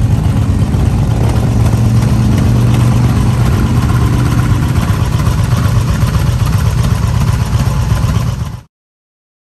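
Motorcycle engine running steadily at a low, even speed. It cuts off suddenly near the end.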